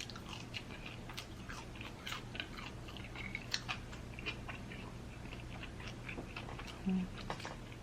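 Close-up mouth sounds of a person chewing a burger: soft, irregular wet clicks and smacks.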